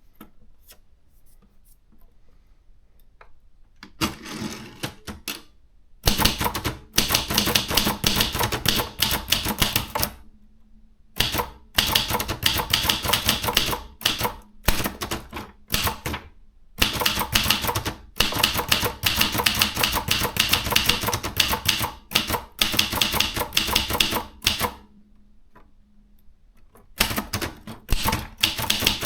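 Maritsa 30 hyperportable manual typewriter being typed on in fast runs of key strikes, with short pauses between the runs. The first few seconds are quiet, and there is a longer break before a final run near the end.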